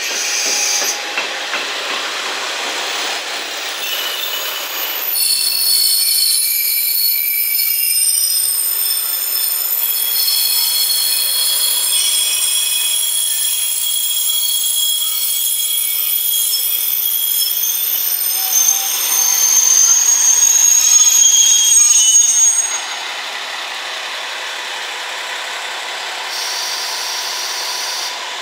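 JNR KiHa 40-series diesel railcars (KiHa 40 and KiHa 47) rolling past on the rails. About five seconds in, the wheels start a high-pitched squeal of several steady tones. The squeal is loudest just before it cuts off about 22 seconds in, leaving a quieter running noise.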